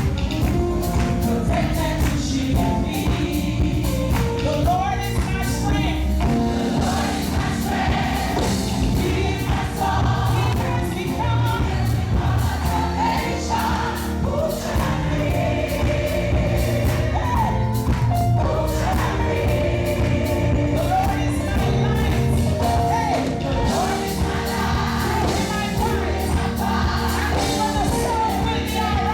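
Live gospel praise song: a choir or praise team singing over a full band with drums and bass, steady beat throughout.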